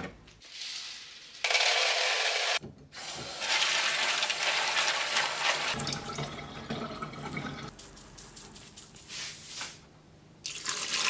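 Water running from a tap into a sink, in several stretches that start and stop abruptly.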